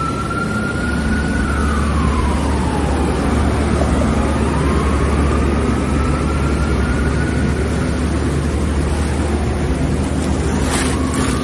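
Heavy rain and traffic wading through a flooded street, a steady wash of water noise over a low rumble, while a siren in the distance wails slowly up, down and up again. A brief louder splash comes near the end.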